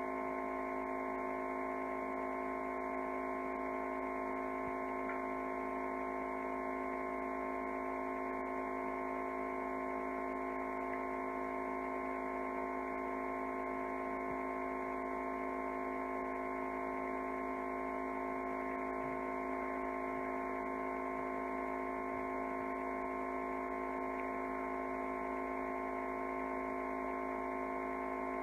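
Steady electrical hum made of several fixed tones, unchanging in pitch and level.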